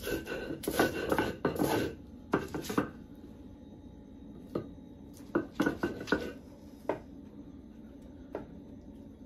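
Stone roller of a volcanic-stone metate grinding raw tomato, chile, onion and garlic on the slab. There is a quick run of rough scraping, knocking strokes in the first three seconds, then fewer, scattered knocks and scrapes.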